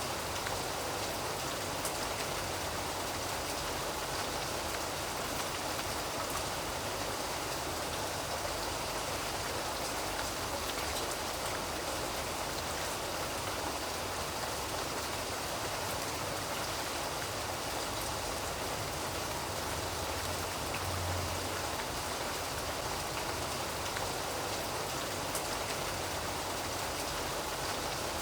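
Steady, even rain falling on a surface, with scattered drop ticks. A brief low rumble sounds about 21 seconds in.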